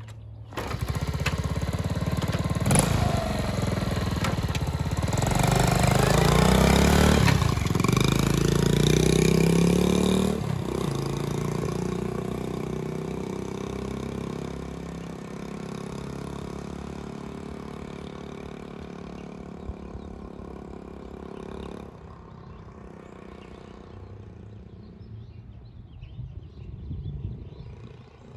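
1971 Honda CT70's small single-cylinder four-stroke engine starting cold, catching about half a second in. It idles and revs up and down a few times, then fades steadily as the bike rides off down the street, faint after about twenty seconds.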